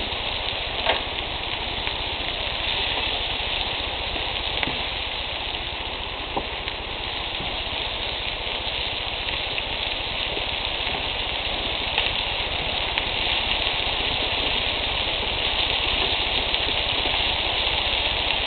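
Bacon-wrapped quail breasts sizzling on a grill: a steady hiss with a few faint pops.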